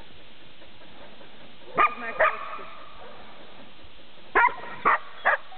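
Border collie barking while herding sheep: five short, sharp barks, two together and then three more about two seconds later.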